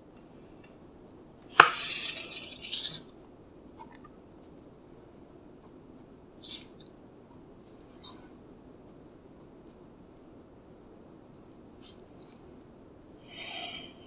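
Pentel Graphgear 1000 mechanical pencil scratching on drawing paper in short strokes, several times. About a second and a half in, a click and a louder sliding rustle of paper lasting over a second as the drawing sheet is shifted on the desk.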